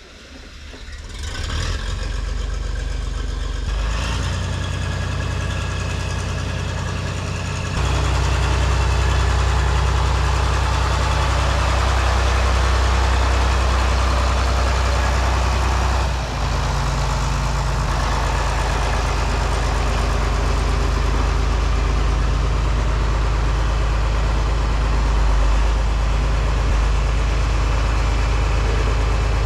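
Farm tractor engine running steadily. It gets louder about eight seconds in and dips briefly around sixteen seconds.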